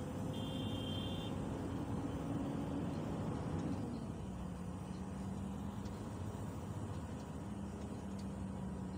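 Engine of a heavy vehicle running, heard inside its cab as it drives through a flooded road, over a steady hiss of rain and water. The engine note drops about four seconds in.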